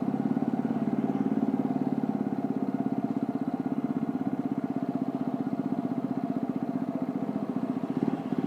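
TVS Apache motorcycle's single-cylinder engine running steadily at low revs, its firing pulses closely spaced.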